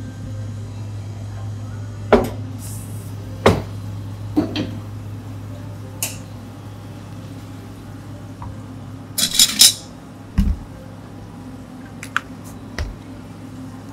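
Cafe work sounds: a series of separate clinks and knocks from cups and utensils being handled, with a brief rattling clatter about nine seconds in, over a steady low hum. Near the end, a stainless steel measuring cup is set down on a scale with a light knock.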